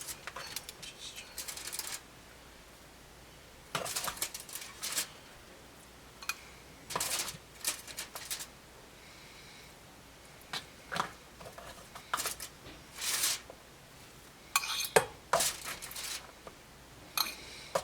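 Serving utensils and cutlery clinking and scraping against dishes in short, irregular clatters as food is dished out.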